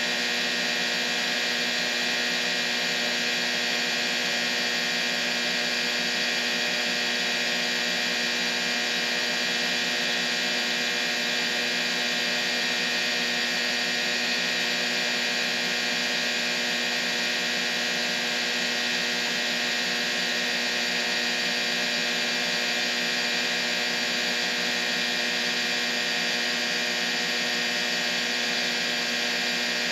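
Steady white-noise masking track: an even, bright hiss with many steady humming tones layered through it, used for tinnitus masking.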